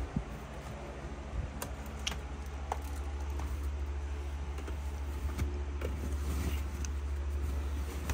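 A steady low hum, with scattered soft clicks and fabric rustling as bed sheets are pushed into a washer-dryer drum.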